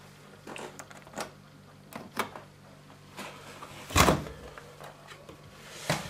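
Door of a Zanussi FL 1234/A front-loading washing machine being opened at the end of the wash: a few small clicks, then a loud clunk about four seconds in as the door comes open.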